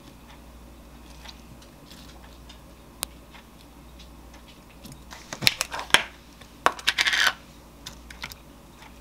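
A metal spoon tapping and scraping inside a plastic fruit cup as pineapple chunks are scooped out. From about five to seven seconds in there is a louder run of sharp plastic clicks and crackling as a plastic tub is handled and opened.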